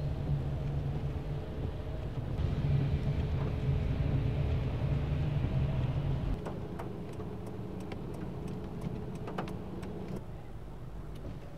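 Engine and road noise heard from inside a moving car: a steady low rumble that eases off about six seconds in, followed by scattered light clicks.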